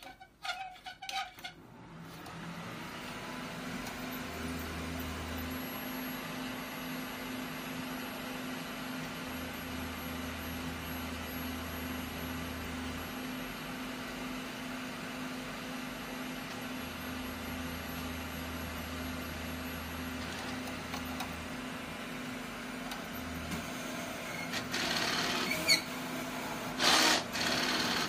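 Large-format inkjet printer with an Epson DX5/DX7 printhead running a nozzle test-strip print: a steady mechanical hum with a lower rumble that comes and goes several times as the carriage and feed move. It is followed by a run of sharp clicks and knocks near the end.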